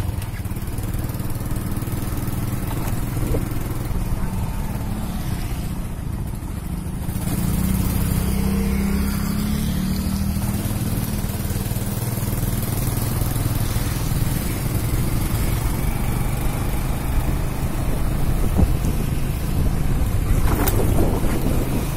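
Motorbike engine running steadily as it rides along, with rushing air and road noise. About seven seconds in, the engine note rises and grows louder as it speeds up.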